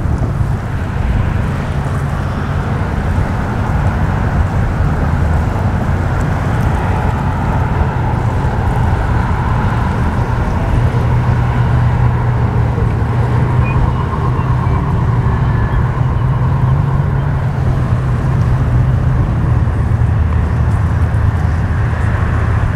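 Outboard motors of passing center-console boats running at a steady drone, with wind buffeting the microphone.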